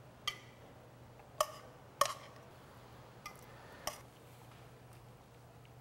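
Five light clinks of cookware on dishware as shrimp are served from a stainless steel sauté pan onto a plate, each ringing briefly, the loudest about two seconds in, over a faint low hum.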